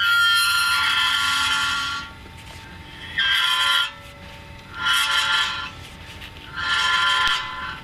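High-pitched metallic squeal from a Volvo V60 diesel plug-in hybrid's wheel, coming in four bursts about every one and a half to two seconds over a low rumble. The cause is a foreign object caught between the brake disc and the sheet-metal dust shield behind it.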